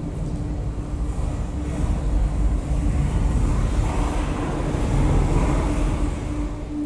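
Steady low rumbling drone with a constant hum, swelling louder with a wider hiss in the middle and easing off near the end.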